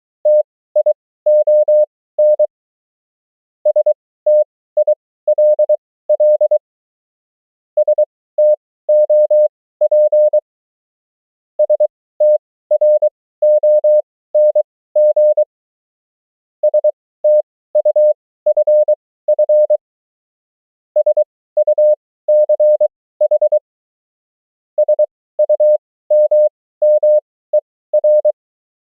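Morse code (CW) sent as a single steady tone keyed on and off in dots and dashes, at 23 wpm character speed spaced out to 20 wpm overall. About seven words go by, each followed by a pause of a bit over a second.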